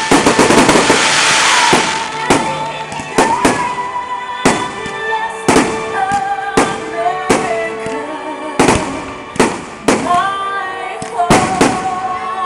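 Fireworks display: aerial shells bursting in a quick series of sharp bangs, most densely packed in the first couple of seconds. Music plays underneath.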